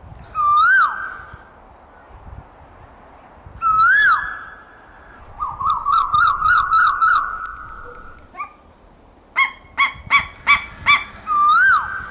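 Asian koel calling: loud whistled notes that rise and then fall, one near the start, one about four seconds in and one near the end. Between them come a fast run of about seven notes around six to seven seconds and six short sharp notes around ten seconds.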